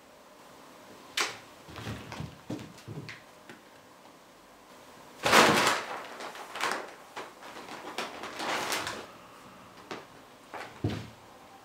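A cat pouncing about and diving into a paper-bag tunnel: the paper rustles and crackles, loudest about halfway through, among scattered short scuffs and light knocks.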